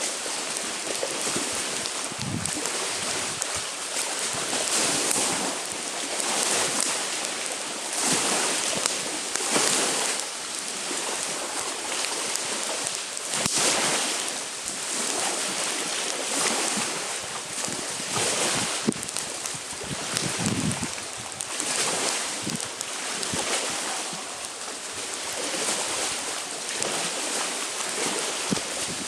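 Lake waves washing onto the shore in a steady wind, swelling and falling every second or two, with a few sharp crackles from a campfire.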